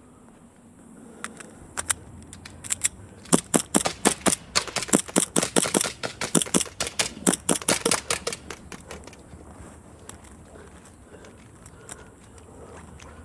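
A rapid string of pistol shots at steel targets, several a second, thickest in the middle and stopping well before the end.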